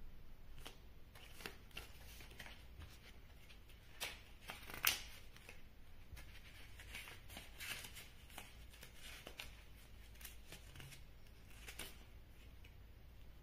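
Pages of a small paperback card guidebook being leafed through by hand: soft paper rustling broken by scattered crisp page flicks, the sharpest about five seconds in.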